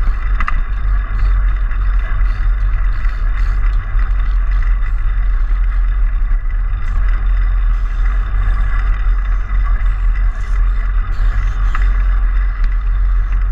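Steady rumble and rattle of a child's bicycle rolling over block paving, picked up through its handlebar-mounted camera, with a couple of sharp knocks.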